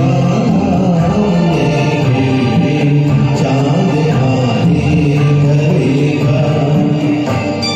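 Karaoke backing track of a Hindi film song playing its musical introduction, a melody carried by sustained, gliding voice-like lines.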